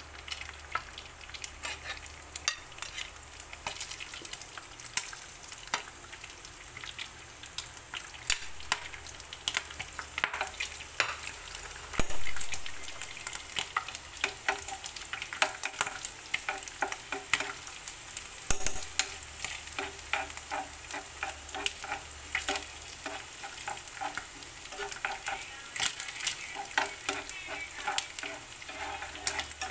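Minced garlic sizzling and crackling in hot oil in a nonstick frying pan alongside browned ground pork, stirred with a metal spoon that scrapes over the pan, with a louder knock of the spoon about twelve seconds in.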